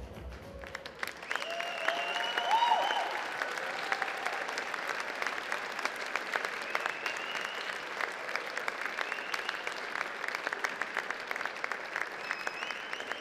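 Audience applauding with steady clapping after the dance music stops in the first second, with a few cheers rising above the clapping about two seconds in.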